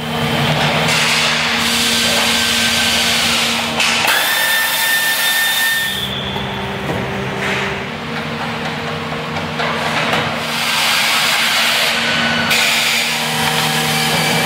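A power tool running in stretches over a steady machine hum. About four seconds in, a steady high whine holds for about two seconds.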